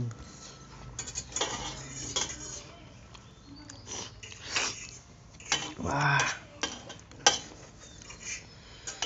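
Metal spoons and forks clinking and scraping on metal plates as two people eat noodles, in irregular clicks. About six seconds in there is a short voiced sound from one of the eaters.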